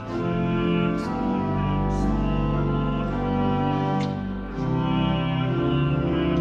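Pipe organ playing a hymn in full sustained chords over a deep pedal bass, the chords changing about once a second.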